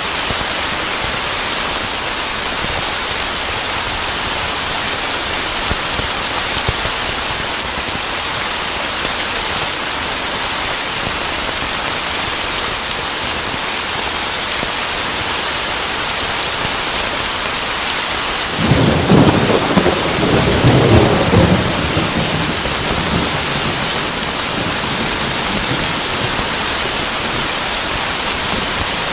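Steady heavy rain falling, with a clap of thunder breaking in suddenly about two-thirds of the way through: a low rumble that lasts a few seconds, then fades back under the rain.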